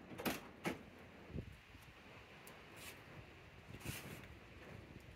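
About five faint clicks and knocks, spread over a few seconds, from a person climbing into a Mercedes 450SL's driver's seat through the open door. The engine is not yet running.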